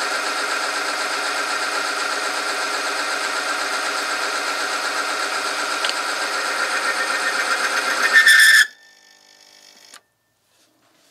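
Electric oil film tester running: its rotating steel ring grinds against the loaded test sample in the oil cup with a steady, high-pitched whine. About eight seconds in it grows louder and squeals briefly. It then cuts off suddenly as the machine stalls under the added weights, at the limit of the oil film's strength.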